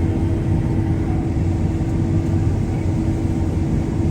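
Farm machinery engine running steadily, an even drone with a constant hum.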